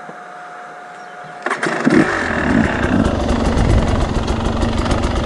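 Enduro motorcycle engine comes in suddenly about one and a half seconds in and keeps running loudly as the bike descends a steep dirt slope.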